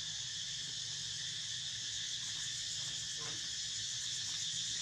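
Steady high-pitched drone of an insect chorus, with a low hum underneath.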